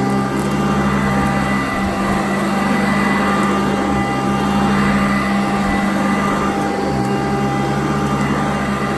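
Sanitaire upright vacuum cleaner running on carpet, a steady motor whine with a strong low hum, the lower rumble changing every couple of seconds as it works.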